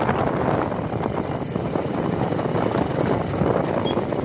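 Wind buffeting the microphone of a handheld phone carried at a walk: a loud, steady, rough rumble with handling noise.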